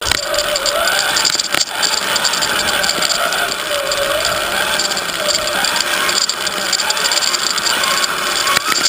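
Electric motor and gears of an HSP RC rock crawler whining as it drives, the pitch wandering up and down with the throttle over a steady mechanical noise.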